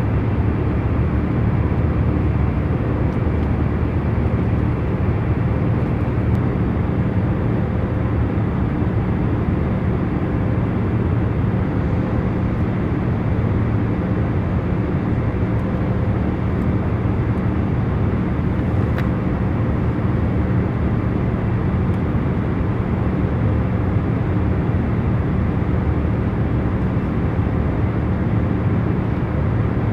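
Airliner cabin noise in cruise flight: a steady low rush of engine and airflow noise with faint, constant hums underneath.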